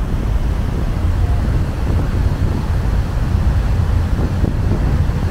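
Wind buffeting the microphone on a moving ferry's open deck, a steady low rumble, with the rush of the ship's churning wake below.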